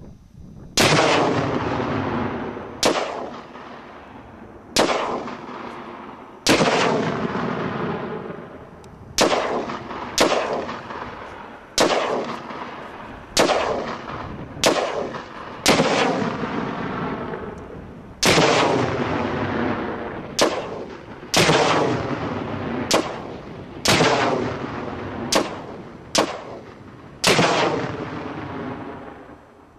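A string of rifle shots detonating 1 lb Tannerite binary exploding targets, about eighteen sharp bangs spaced one to two seconds apart, each trailing off in a long rumbling decay.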